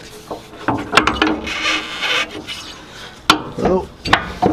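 An impact wrench run in short bursts, driving the nuts that hold the rear coilover to the body, with sharp metallic knocks as the socket is fitted onto them.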